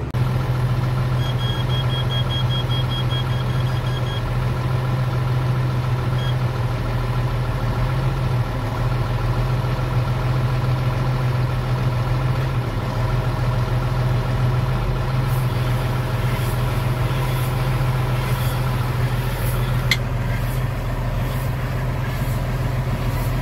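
Tractor engine running steadily, heard from inside the cab. A quick run of short high beeps comes about a second in, and faint regular clicks come in toward the end.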